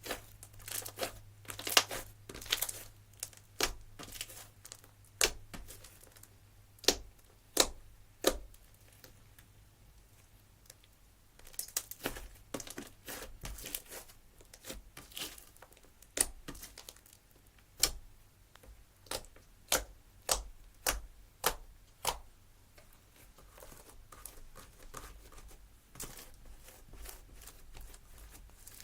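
Slime being squeezed, stretched and poked by hand, giving irregular sharp clicking pops and crackles as air pockets burst, some in quick clusters and some single.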